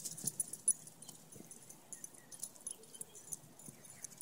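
Light metallic jingling and clicking from a rat terrier's collar tags as the dog runs across the grass, most in the first second, then sparse faint ticks.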